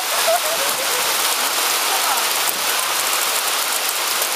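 Hailstones falling steadily in a storm, a dense, continuous patter of many small impacts on the ground and nearby surfaces.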